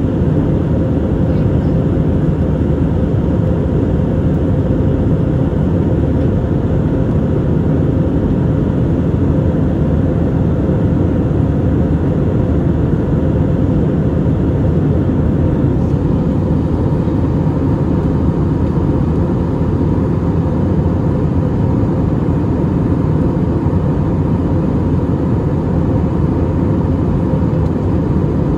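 Airbus A320neo cabin noise: a steady drone of the jet engines and rushing air, with a faint steady hum riding on it.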